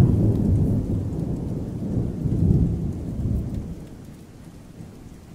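Low rolling thunder rumbling and slowly dying away.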